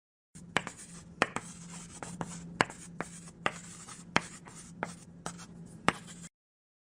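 Writing on a surface: scratching with about ten sharp taps at uneven intervals, over a steady low hum. It starts and stops abruptly.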